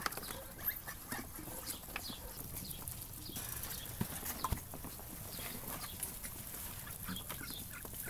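Muscovy ducks feeding from a tray of wet grain mash: faint, scattered clicks and pecks of their bills in the feed.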